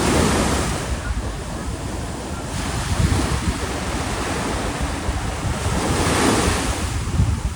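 Ocean surf breaking and washing up the beach, a hiss that swells near the start and again about six seconds in, with wind rumbling on the microphone.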